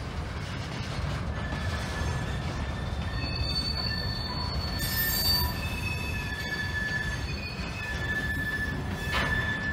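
Freight train of covered hopper cars rolling slowly on rusty track: a steady low rumble with high-pitched wheel squeals in several tones that start about a second in and come and go.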